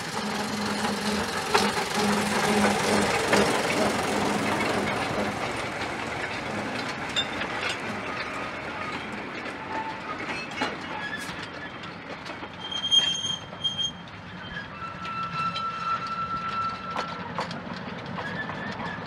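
A narrow-gauge locomotive and its wagons run past and away, the engine note fading over the first five seconds, with wheels clicking over the rail joints. A few short, high squeals come later, between about 12 and 17 seconds in.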